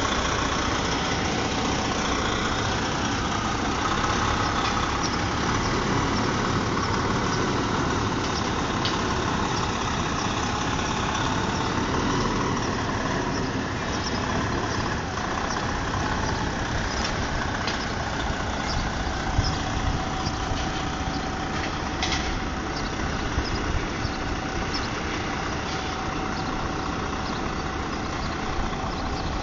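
Diesel engine of a semi-truck tractor running steadily at low revs while it moves slowly with an oversize load, with a few short sharp clicks over it.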